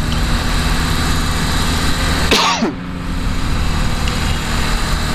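Triumph Speed Triple 1200 RS three-cylinder engine running under way. About two and a half seconds in, the engine sound breaks off briefly, together with a short sharp noise.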